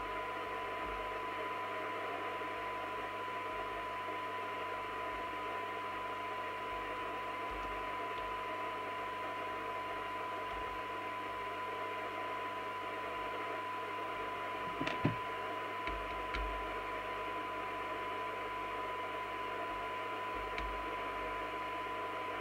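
Nato 40FM CB radio receiving a very weak signal-generator signal, about 0.1 microvolt. Its speaker gives a steady test tone in a bed of receiver hiss, with a few small clicks about fifteen seconds in.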